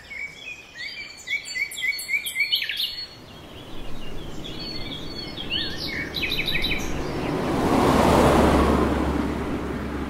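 Small birds chirping and singing in short repeated notes. In the second half a rushing noise swells up, peaks and fades, leaving a low steady rumble.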